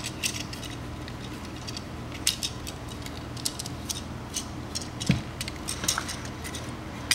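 Plastic action-figure joints and parts clicking and rattling irregularly as the toy is twisted and turned by hand during its transformation.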